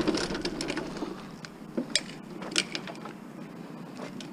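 A few short clicks and knocks over low background noise, about two seconds in, as scrap metal is handled.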